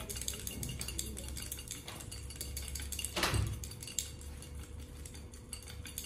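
A xóc đĩa set shaken by the wrist: the counters rattle and click rapidly inside a ceramic bowl capped over a plate, with one louder knock a little after three seconds in.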